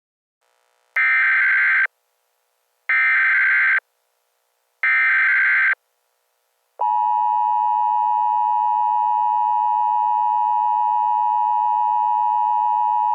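Emergency Alert System alert opening: three short bursts of SAME digital header data about two seconds apart, then the steady two-tone EAS attention signal (853 and 960 Hz) starting about seven seconds in.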